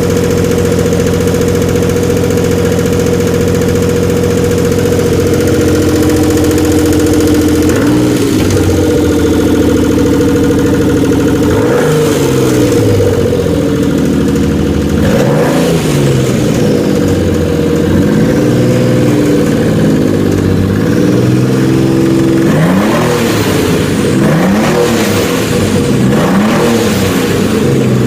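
Dodge Stealth Twin Turbo's 3.0-litre V6 idling steadily, then from about eight seconds in revved repeatedly in short blips that rise and fall. The engine has just been revived after a hydrolock, and the owner reports lifter tick.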